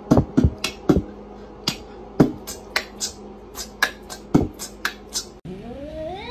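A cat's claws clicking on a tiled floor as it walks: a sharp tap with each step, about three a second. Near the end a cat's meow starts and rises steadily in pitch.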